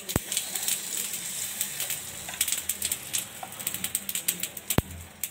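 Hot oil crackling and popping in the cavities of an appe pan, with mustard seeds spitting in it and suji batter sizzling as it is spooned in: a dense, irregular patter of sharp clicks over a steady hiss. Two louder knocks come near the start and near the end.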